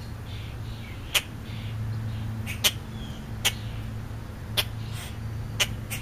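Sharp taps or clicks, about six at uneven intervals, over a steady low hum, with faint short bird chirps in between.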